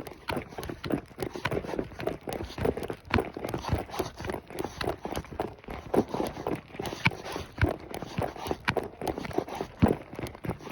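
Hooves of a ridden horse striking the ground in a steady clip-clop, a few hoofbeats a second.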